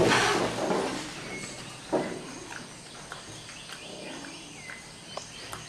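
Rustling in the first second, a single knock about two seconds in, then faint high bird chirps over quiet outdoor ambience.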